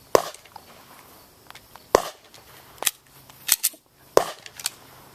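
Gunshots: about seven sharp cracks at irregular intervals, two of them in quick succession about three and a half seconds in.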